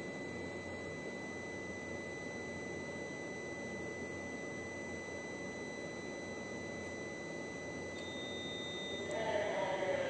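A steady high-pitched tone, with fainter higher overtones, over a constant low background hiss.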